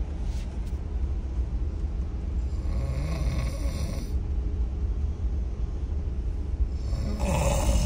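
A sleeping person snoring: two long snores about four seconds apart, over a steady low hum.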